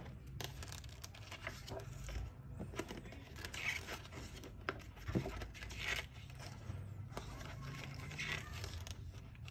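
Pages of a printed booklet turned by hand: soft paper rustles and slides, about three times.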